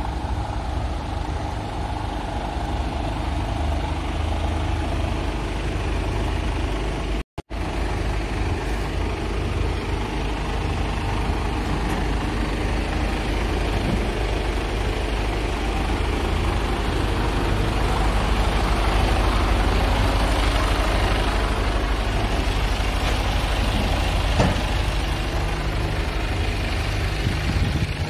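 Scania G450's 13-litre six-cylinder diesel truck engine idling with a steady low hum. The sound cuts out briefly about seven seconds in.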